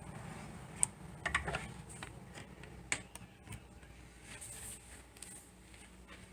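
A few faint, scattered clicks and light taps over a low steady hum, with a small burst of them about a second in.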